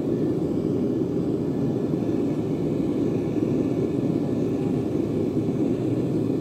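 Gas forge burner running steadily: an even, low rushing noise with no change in level.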